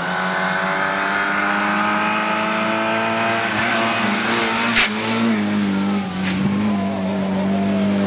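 Lada rally car's engine running hard at high revs, its note held nearly steady, with a single sharp crack a little before halfway, after which the revs dip briefly and climb again.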